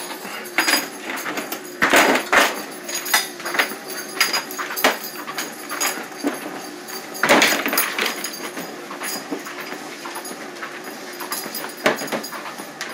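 Treadmill running: a steady motor-and-belt hum that wavers slightly in pitch, under irregular thumps and knocks from footsteps on the deck and a dog's toy being dropped and kicked back at the end of the belt. The loudest knocks come about two seconds in and again near the middle.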